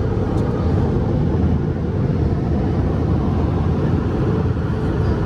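Automatic car wash drying blowers running: a loud, steady rush of air with a faint steady hum.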